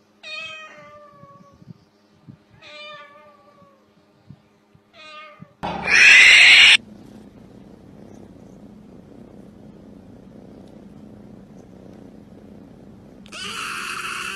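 Three short meows, each falling in pitch, then a loud harsh rasping sound lasting about a second. Near the end a tabby kitten gives a loud, rough open-mouthed cry.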